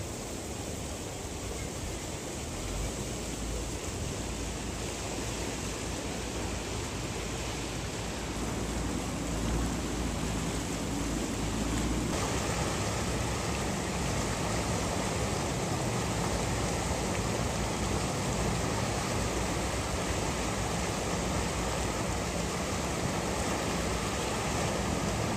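Muddy floodwater of a swollen river rushing steadily, growing gradually louder.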